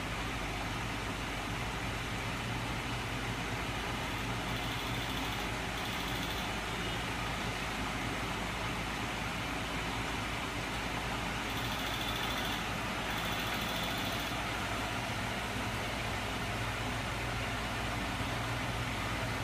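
Steady whirring hum of a small electric motor driving a homemade magnet-engine and generator rig, powered from a bench supply at about 10 V and 6 A. A faint high whine comes and goes twice.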